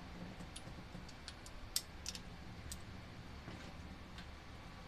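Scattered light clicks and clinks, irregular and a fraction of a second apart at most, from handling a spark plug and hand tools, over a faint steady low hum.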